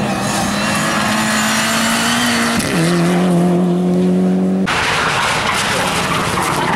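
Rally car engines at high revs on a stage. A held engine note drops to a lower one about two and a half seconds in, then switches abruptly to a different car's engine about two-thirds of the way through.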